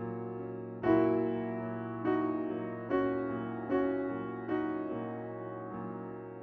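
Slow, gentle piano background music: a chord or note struck roughly every second, each ringing and fading before the next.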